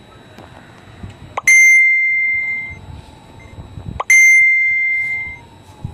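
A small bell rung twice, about two and a half seconds apart. Each ring is a sudden bright, high ding that rings on and fades over about a second.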